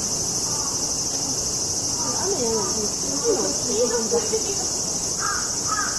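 Steady, high-pitched chorus of insects buzzing. Faint distant voices sound under it in the middle, and short repeated curling calls begin near the end.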